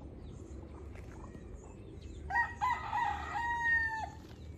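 A native rooster crowing once, a little over two seconds in: a broken, choppy opening, then a long held note that falls away at the end.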